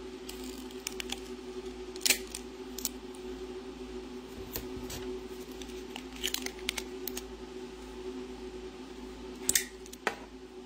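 Clear tape pulled from a small handheld dispenser and torn off: several short, sharp rips and clicks, the loudest about two seconds in and near the end, over a steady low hum.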